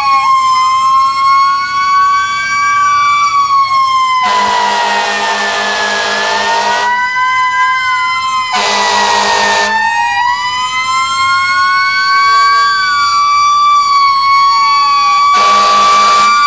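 Several fire engine sirens wailing together, their pitches sliding up and down and crossing. Loud horn blasts cut in three times: a long one about four seconds in, a short one at about eight and a half seconds, and another starting near the end.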